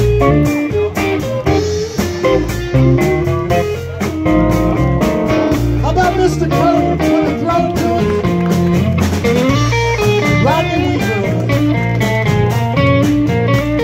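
Live blues band playing: electric guitars over bass and drums, with bent notes in the lead line.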